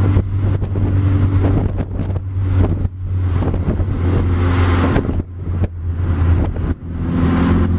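Car engine running under steady load with tyre and wind noise, heard from inside the car, with two brief dips in loudness in the second half.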